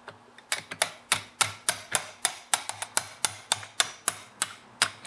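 Small hammer striking a roll pin punch in a steady run of sharp metallic taps, about three a second, driving the piston pin out of a Stihl MS260 chainsaw piston.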